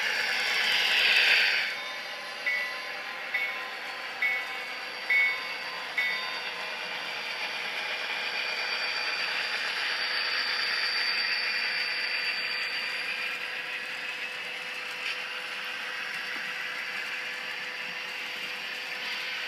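HO-scale model trains running on layout track: a steady whir of small motors and wheels rolling over the rails. A louder rush comes in the first second or so, then five short tones about a second apart.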